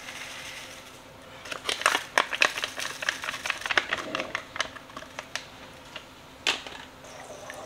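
Seasoning mix packet crinkling and crackling in the hand as it is opened and shaken out over the pan, a dense run of crackles in the first few seconds, then a single sharp click later on.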